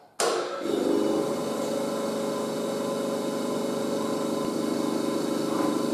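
Metal shaper switched on about a quarter of a second in, its motor and drive then running steadily with an even mechanical hum.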